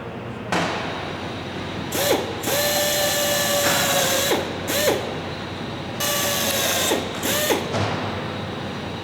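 A power drill running in about five short bursts, two of them longer, a steady whine whose pitch dips as each burst spins up and winds down.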